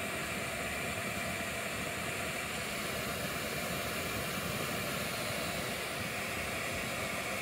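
Jetboil Zip gas stove burner hissing steadily while it heats water to a boil.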